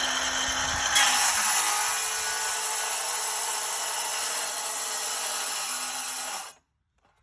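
Milwaukee Fuel cordless circular saw running and cutting along a homemade vinyl-plank guide track, trimming off the overhanging vinyl. It runs steadily and stops abruptly near the end.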